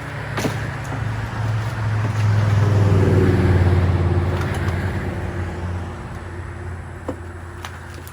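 A motor vehicle's engine grows louder to a peak about three seconds in, then fades away, like a car or truck passing by.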